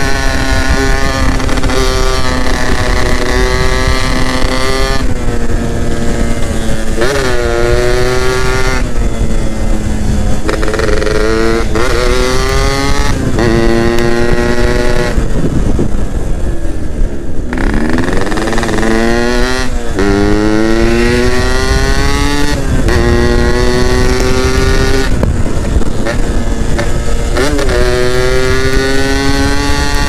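Yamaha F1ZR's 110 cc two-stroke single-cylinder engine pulling through the gears. The pitch climbs in each gear and drops sharply at each shift. About halfway through it eases off and the pitch falls, then it accelerates again.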